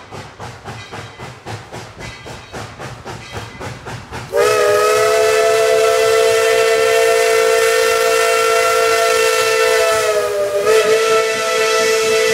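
Ten-wheeler steam locomotive No. 12 chuffing at about four exhaust beats a second while pulling its passenger train. About four seconds in, its chime whistle starts a long blast of several notes sounding together, which wavers briefly near the end and then sounds on.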